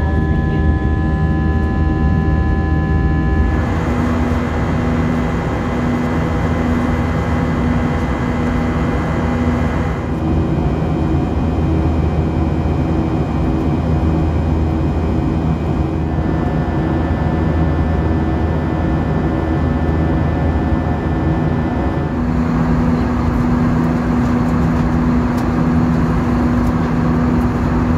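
Airbus A320 passenger cabin in flight: the steady roar of the jet engines and airflow, with steady engine tones on top that shift in pitch a few times.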